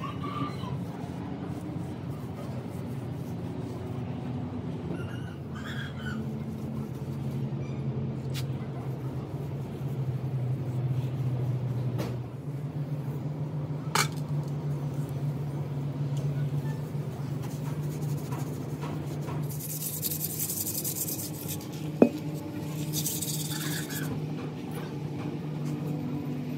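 Steady low mechanical hum, with a few sharp knocks spread through it (the loudest about 22 seconds in) and two short bursts of hiss near the end.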